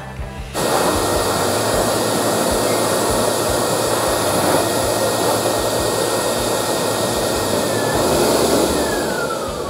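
High-velocity pet grooming dryer blowing through its hose, a loud steady rush of air with a thin whine. It starts about half a second in, and near the end the air eases and the motor's whine falls in pitch as it winds down.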